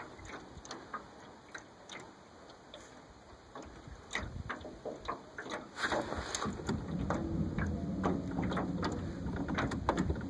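Small waves lapping at the water's edge, making irregular light ticks and clicks. About six seconds in, a steady low hum comes in under them.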